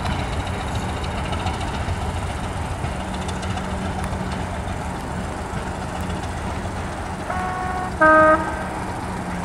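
Class 205 "Thumper" DEMU's English Electric four-cylinder diesel engine running with its pulsing low thump as the unit moves away. Near the end its horn sounds two short notes, a fainter higher note followed by a louder lower one.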